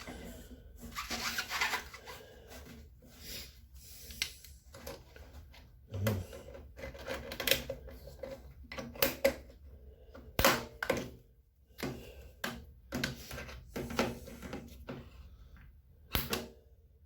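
Hands working on a washing machine's drain pump and hose: scattered clicks, knocks and rubbing of plastic parts and tools, with a sharp knock about ten seconds in and another near the end.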